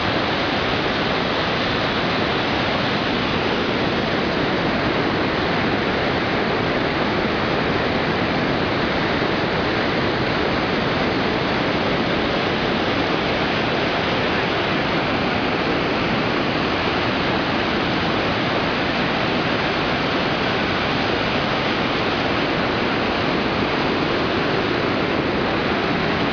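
Loud, steady rush of water pouring through a dam's flood spillway, unbroken throughout.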